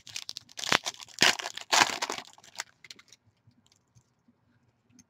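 Foil wrapper of a Panini Prizm basketball card pack being torn open and crinkled by hand: a run of crackling rips over the first two and a half seconds, then only a few faint ticks.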